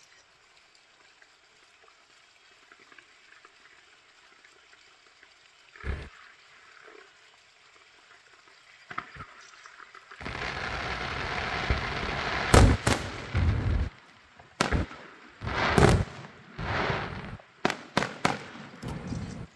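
Fireworks going off: a single bang about six seconds in, then a dense crackling for about four seconds, followed by a string of loud bangs and short crackling bursts.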